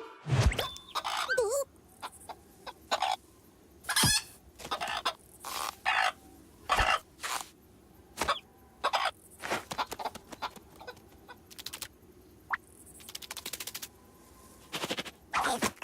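Cartoon sound effects: a string of short, squawking animal-like vocal noises and clicks, one after another with short gaps, and a brief hiss about thirteen seconds in.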